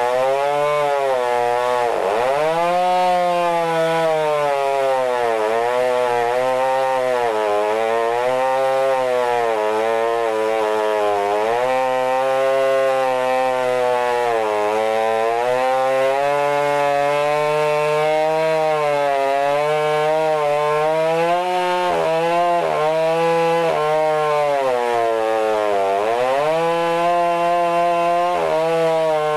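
Modified Stihl MS661 chainsaw at full throttle, ripping a long cut along a log in a chainsaw mill. Its engine pitch sags under load and recovers again and again, dipping sharply about two seconds in and several times near the end.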